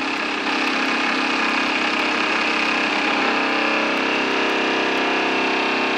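A lathe spinning a rebuilt Lucas motorcycle dynamo at 2000 RPM, a steady mechanical whirr with a pitched hum. About three seconds in the note changes as the dynamo is loaded by a 12-volt bulb, and this shows it is generating.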